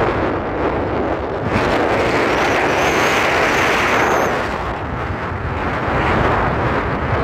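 Wind rushing over the microphone and road noise from a moving vehicle. It swells louder for a couple of seconds in the middle, with a faint high whine during that louder stretch.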